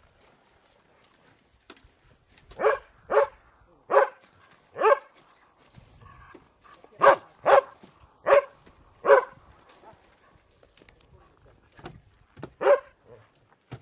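A dog barking: about nine short, sharp barks in uneven groups, several of them in quick pairs, with pauses between.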